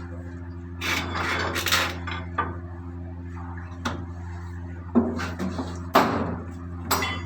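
Scraping and rubbing of tools and engine parts near the start, then scattered clicks and three sharp knocks, over a steady low mechanical hum.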